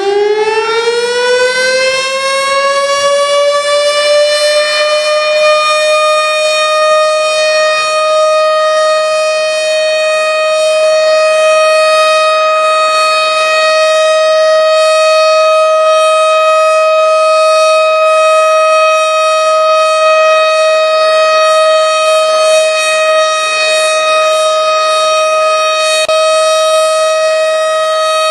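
Civil defence siren finishing its wind-up, rising in pitch over the first few seconds, then holding one loud steady tone with strong overtones. This is the remembrance siren sounded across Turkey at 09:05 on 10 November for Atatürk.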